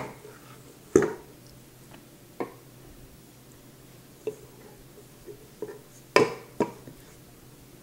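A stainless-steel stand-mixer bowl being handled on a granite counter while soft bread dough is scraped out of it by hand: a handful of separate knocks and clinks, the loudest a pair about six seconds in.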